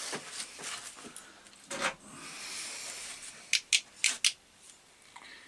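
Rubbing and rustling handling noises in a small room, with four or five sharp, light clicks in quick succession a little past halfway.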